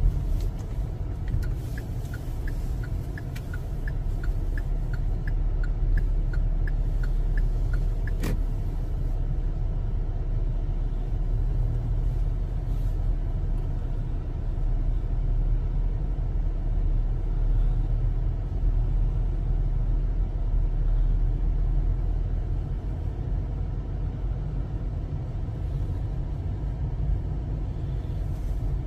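Low, steady rumble of a car driving slowly, heard from inside the cabin: engine and road noise. For the first several seconds a light, regular ticking runs at about three a second, ending in one sharper click.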